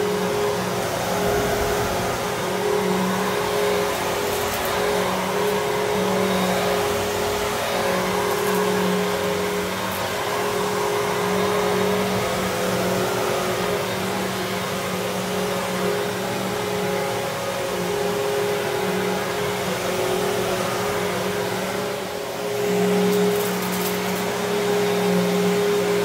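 Riccar Vibrance Classic upright vacuum cleaner running on carpet, a steady motor hum over a rush of air, with a brief dip in loudness near the end.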